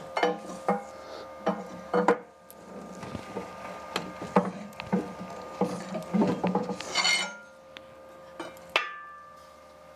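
Small metal parts clinking and rattling as they are rummaged through and picked up. There are a dozen or so sharp clinks, some ringing on briefly, and a short rattle about seven seconds in.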